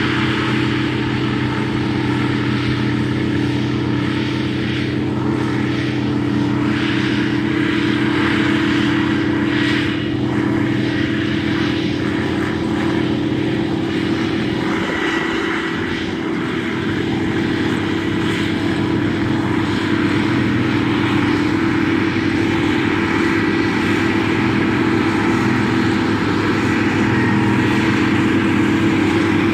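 Diesel engine of a Track Marshall crawler tractor running steadily under load while ploughing, a continuous drone that eases briefly about halfway through.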